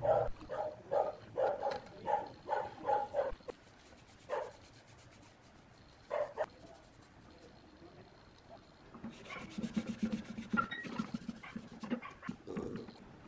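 A dog barking in quick short barks, about three a second, for the first three seconds, then twice more singly. Later a cloth rubs over the steel plate for a few seconds.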